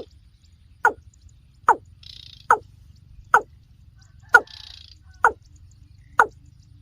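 Watercock calling: a regular series of short notes, each dropping quickly in pitch, a little more than one a second.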